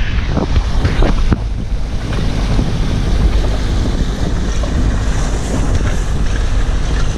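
Motorboat running under way across the water, its low engine drone mixed with heavy wind buffeting on the microphone and the rush of water.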